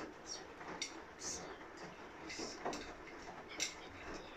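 Quiet handling sounds: a few light clinks and taps of a metal spoon and plastic bottle with some short hissy bursts, as slime activator is poured into the spoon over an enamel bowl.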